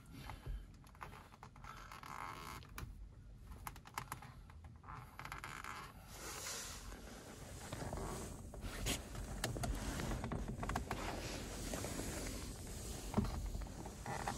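Scattered light clicks and rustling in a car cabin, getting busier about halfway through with one sharper click near the end, from hands and a flat screwdriver working the airbag release holes behind a BMW G30's steering wheel.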